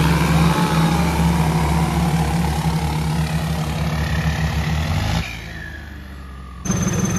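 Tractor diesel engines, a Swaraj 963 FE and a John Deere 5050D, running hard in a chained tug-of-war, with a steady low engine pulse. About five seconds in the engine sound drops away sharply, and it comes back abruptly just before the end.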